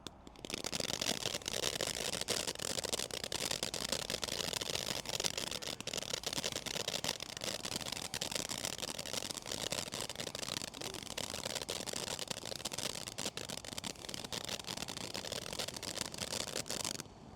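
Black Cat Close Encounters firework fountain burning with a steady hiss and dense crackling. It starts about half a second in and cuts off suddenly near the end.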